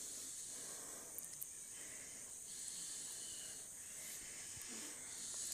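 Diced carrots and green beans sizzling in hot oil in a frying pan, a soft steady hiss.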